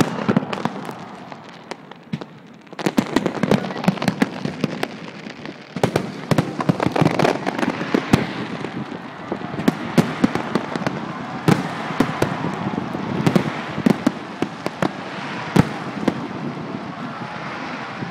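Fireworks display going off: many sharp bangs and crackles in quick succession over a continuous background din, with a brief lull about two seconds in.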